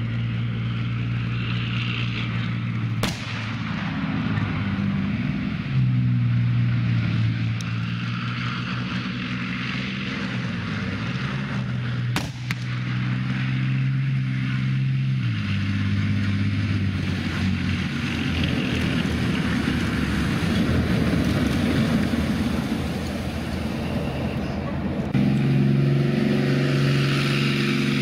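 Armoured military vehicle's diesel engine running as it drives, its note stepping up and down in pitch, with two sharp cracks about 3 and 12 seconds in. Near the end the engine note suddenly jumps to a louder, higher pitch.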